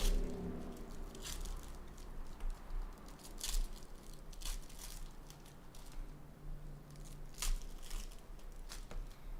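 Foil wrappers of SP Authentic hockey card packs crinkling and tearing as packs are ripped open, with the cards handled in between; a series of short crinkles and rips, the loudest about three and a half and seven and a half seconds in.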